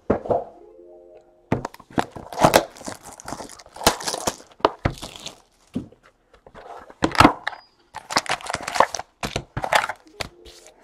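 Foil trading-card pack wrappers being torn open and crinkled, with irregular ripping and rustling as the packs are opened and the cards handled.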